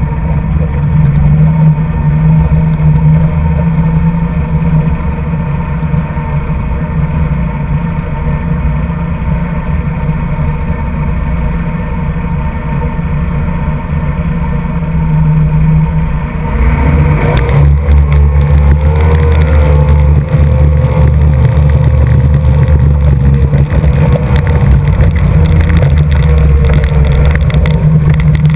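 Mercury 2.5 EFI two-stroke V6 racing outboard running hard, loud against the rush of water and wind. About seventeen seconds in it gets louder and its pitch rises as the throttle opens further and the boat speeds up, then it holds at high speed.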